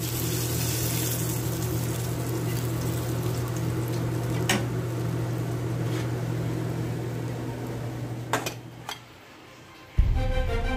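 Steady low machine hum with a hiss over it. A dish clinks about halfway through and twice more near the end. The hum then stops, and background music starts just before the end.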